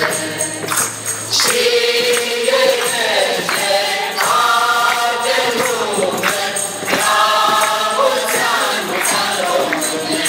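Mixed choir of men's and women's voices singing a Romanian Christmas carol (colindă) in several parts, with light percussion marking a steady beat.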